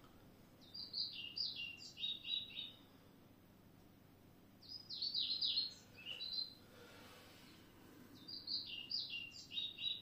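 A songbird singing the same phrase three times, each about two seconds of quick, falling notes, with short pauses between.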